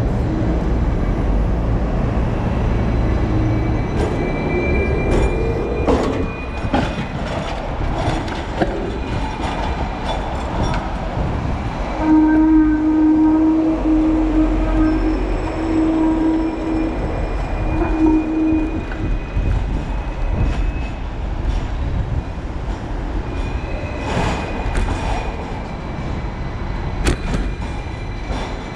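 City street traffic heard from a bicycle riding beside tram tracks, with wind rumble on the microphone and double-decker trams running close by. About halfway through, a steady low horn-like tone sounds for several seconds, broken a few times.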